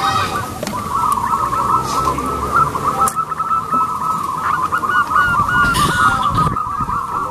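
Zebra doves cooing: quick rolling notes that overlap and run on without a break.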